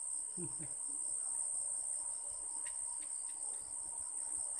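Insects trilling: a steady, high-pitched shrill, with a second insect's evenly pulsing chirp a little lower beneath it.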